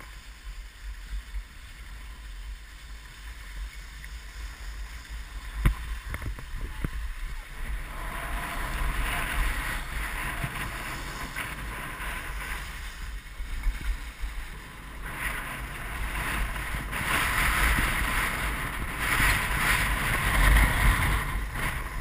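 Skis hissing and scraping over packed snow with wind rumbling on an action camera's microphone during a downhill run, getting louder from about eight seconds in as speed builds. A single sharp click comes about six seconds in.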